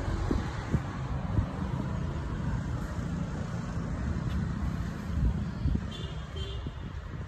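Wind buffeting the phone's microphone, a low rumbling noise that rises and falls unevenly.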